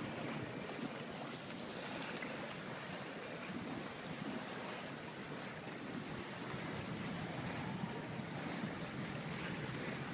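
Steady wash of water along a sailboat under way, with wind on the microphone.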